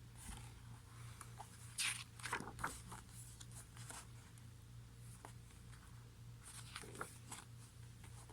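Pages of a glossy photobook being turned and handled: a few soft paper rustles, the loudest a little under two seconds in, over a faint steady hum.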